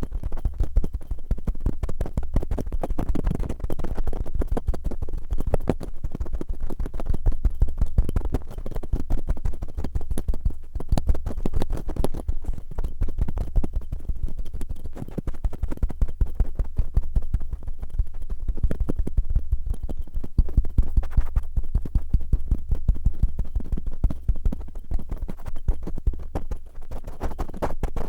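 Cotton swabs rubbed and scratched roughly against a binaural ear microphone: a dense, continuous run of rapid scratchy strokes over a steady low rumble.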